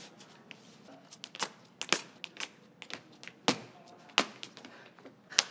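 Dance steps and stomps on a studio floor: sharp, irregular taps, a few each second, over faint room tone.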